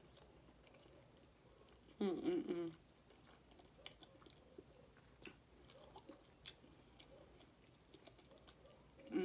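Faint close-up chewing of food, with small wet clicks and crackles from the mouth and a couple of sharper ticks in the second half. A brief hummed voice sound about two seconds in.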